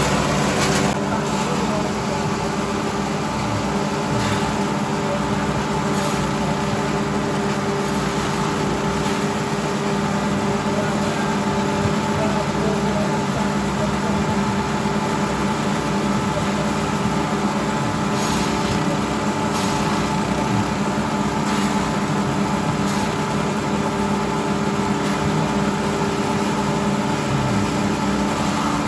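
Small stationary engines of grass chopper machines (forage choppers) running steadily together while green fodder is fed through and chopped, with a few short knocks from the cutting.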